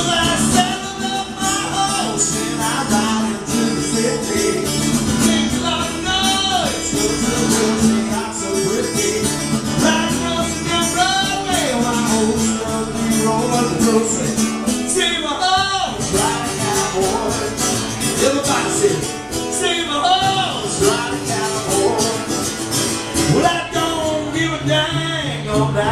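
A harmonica solo with bending notes, played into a microphone over acoustic guitar accompaniment, as an instrumental break in a country song.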